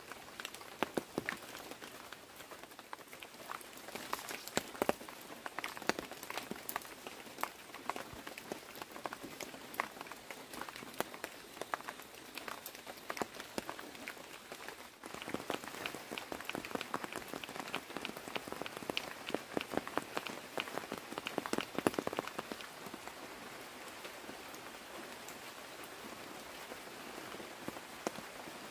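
Rain falling, a dense patter of drops striking a nearby surface over a steady hiss, with a sudden break about halfway through.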